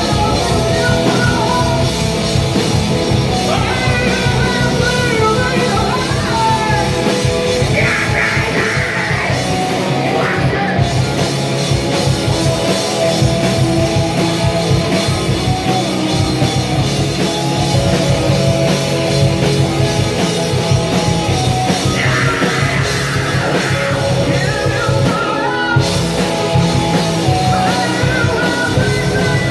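Live punk/heavy rock band playing loud: electric guitars, bass guitar and drum kit, with a singer singing and shouting into a microphone.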